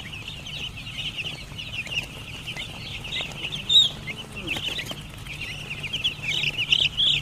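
A flock of young chicks peeping continuously, a dense chorus of short high cheeps with one louder cheep about four seconds in, over a faint low steady hum.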